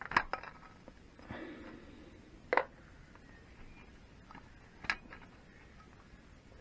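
Small metal clicks and clinks from springs and parts of a gearbox's gear-change mechanism being handled and lifted out of its alloy cover: a few at the start, a sharper click about two and a half seconds in, and another about five seconds in.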